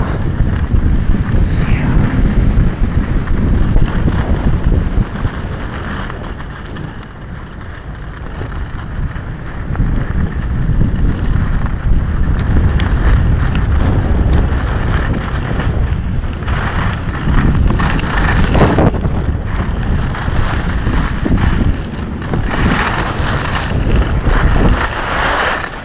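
Wind buffeting the microphone of a camera carried by a skier in motion, a heavy steady rumble, with the hiss and scrape of skis on packed snow. The rumble eases for a few seconds after about five seconds in, and there are louder stretches of scraping later on and near the end.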